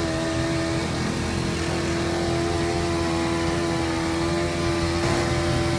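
Handheld glass-removal power cutter running steadily with a high whine while its WK5-S blade cuts at an angle through the urethane adhesive bead of a train window.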